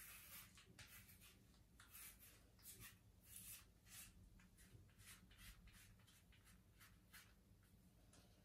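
Cartridge razor scraping over a lathered scalp in short, faint rasping strokes, about two a second, cutting through four weeks of stubble.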